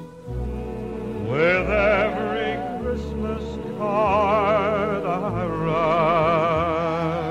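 Background music: a slow held melody with strong vibrato over sustained low notes.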